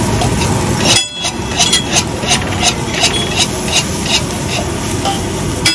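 Uttapam sizzling on a hot flat griddle (tawa) while a metal spatula scrapes and taps the plate, about three strokes a second from a little after a second in.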